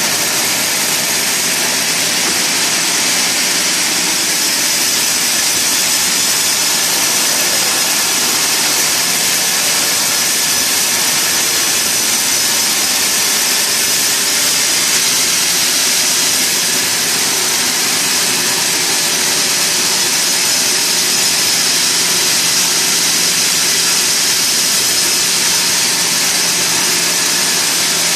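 Sawmill machinery running steadily and loudly, a constant noise with a fixed hum under it and no pauses.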